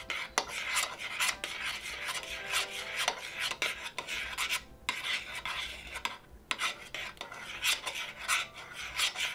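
A utensil stirring and scraping through thickening flour-and-hot-milk roux in a pan, in a quick run of repeated scraping strokes with a couple of short pauses, as the mixture turns to a paste.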